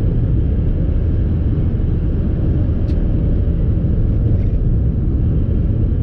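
Steady low rumble of engine and road noise inside a vehicle's cab while driving, with a faint click about three seconds in.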